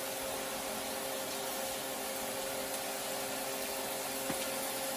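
Kitchen extractor hood fan running steadily: an even rushing noise with a steady hum.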